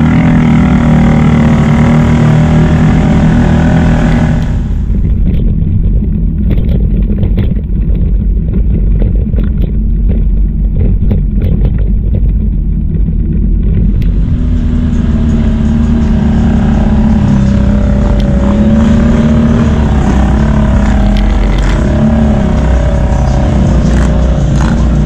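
ATV engine running steadily as the quad rides over a rough, muddy trail, with knocks and rattles from the bumps. For about ten seconds in the middle the sound turns duller and the knocks stand out over the engine drone.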